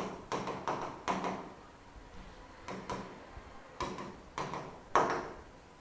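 Irregular sharp taps of a writing tool striking a board as electron dots are drawn, about a dozen in all, the loudest near the end.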